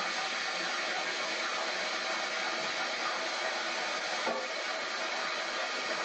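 A jet of water hissing steadily as it sprays against the spoked steel wheel of a ploughing engine, washing it down.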